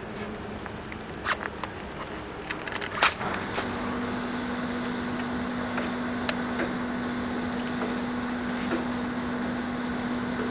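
Gas blowback airsoft rifle magazines being pushed into the pouches of a plate carrier: a few knocks and clicks, the loudest about three seconds in. Then a steady low hum sets in and holds.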